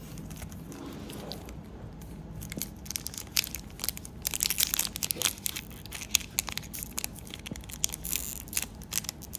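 Wrapper of a Panini NBA Hoops trading card pack being torn open and crinkled by hand, with a run of sharp, irregular crackles starting about two and a half seconds in.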